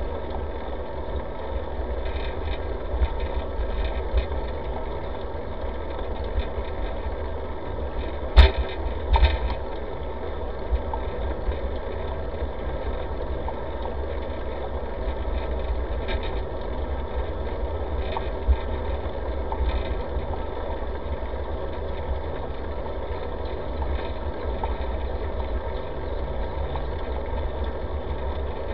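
Steady low rumble from a bicycle-mounted camera while riding on asphalt: road vibration and wind on the microphone. A sharp knock comes about eight seconds in, with smaller ones a second later.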